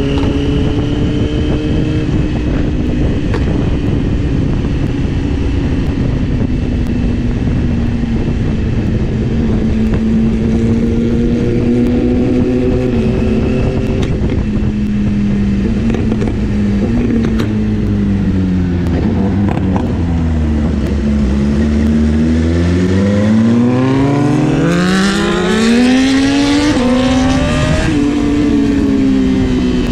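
Sport motorcycle engine under way, holding a fairly steady pitch, easing off about twenty seconds in, then revving hard with a steeply rising pitch and a brief dip near the end. Steady wind rush on the microphone underneath.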